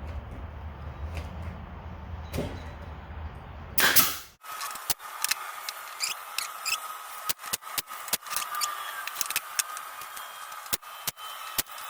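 A steady low hum for about four seconds, ended by one loud burst, then a run of irregular sharp clicks and taps.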